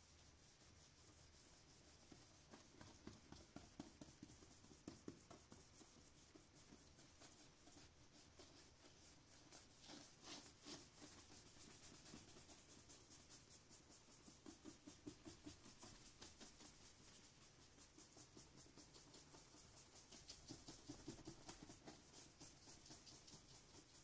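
Faint scratchy rubbing of a wide flat bristle brush loaded with acrylic paint, swept across paper in quick repeated strokes, a few a second.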